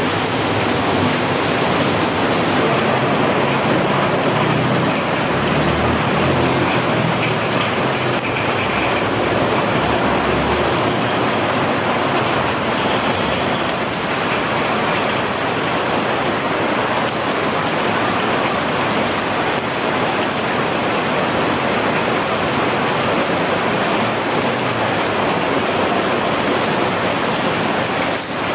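Heavy rain pouring onto a flooded street, a steady loud hiss. A vehicle driving through the floodwater adds a low rumble for several seconds about six seconds in.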